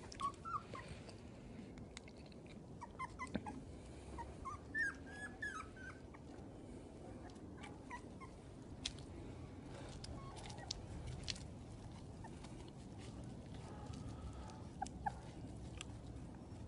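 Shar Pei puppies giving short, high squeaks and whimpers. These come mostly in the first six seconds, with a couple more near the end, over a faint low rumble.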